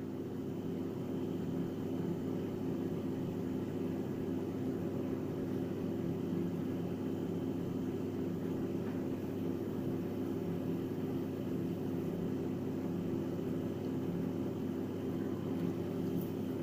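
Steady, unchanging hum of a running electric motor.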